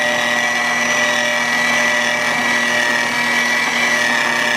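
Electric hand mixer running at a steady speed, its beaters whisking egg yolks and powdered sugar in a bowl, with a steady motor whine.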